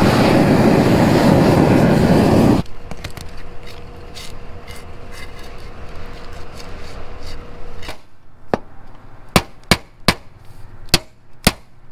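A propane roofing torch runs loud and steady for the first two and a half seconds, then stops, followed by light scraping and taps of a trowel pressing the heated torch-down membrane flap. In the last four seconds there are several sharp, irregular hammer blows.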